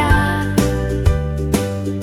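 Instrumental children's-song music, held notes over a steady beat of about two strikes a second, with no singing.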